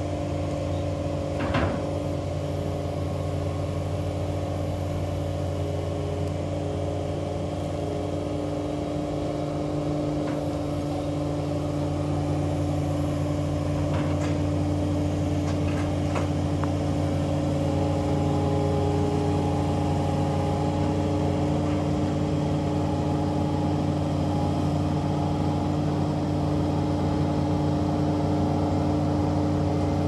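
Heavy equipment engine running steadily at a constant pitch, growing slightly louder partway through, with a brief sharp knock about a second and a half in.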